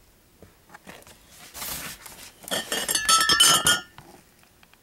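Glass Budweiser beer bottles clinking and ringing against each other as they are handled in their cardboard carton, after a short rustle of cardboard.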